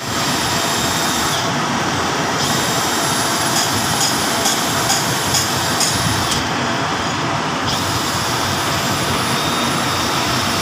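Steady loud noise of running machinery, with a few light metallic clinks about four to six seconds in.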